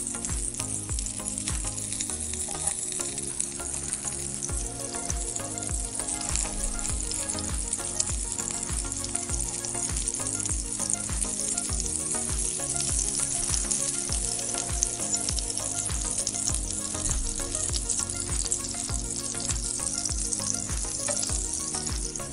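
Green chilli rings sizzling as they fry in a pan: a steady, dense hiss. Background music with a steady beat plays underneath.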